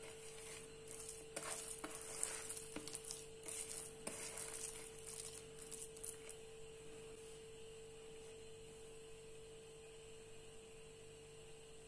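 Hands squeezing and mixing grated potato into a thick chickpea-flour batter in a stainless steel bowl: soft, irregular wet squelching and scraping that stops about six seconds in. A faint steady hum runs underneath.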